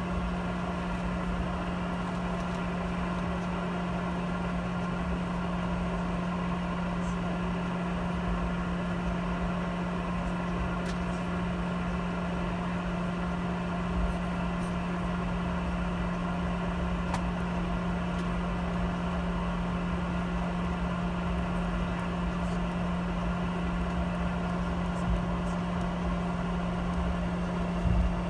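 Steady cabin drone inside a Boeing 717-200 taxiing, its rear-mounted jet engines at idle, with a strong low hum that holds at one pitch. A few faint clicks come through now and then.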